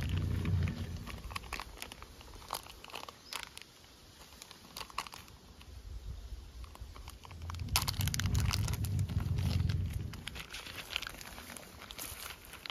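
Close rustling and crackling of dry leaf litter, twigs and clothing in scattered snaps, with low rumbles at the start and again about eight seconds in.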